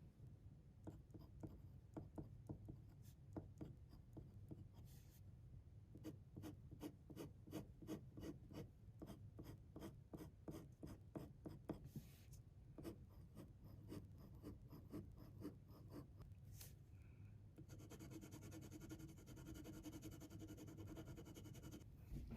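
Faint sound of a pen writing on paper: many short scratchy strokes, turning into a steadier rubbing near the end.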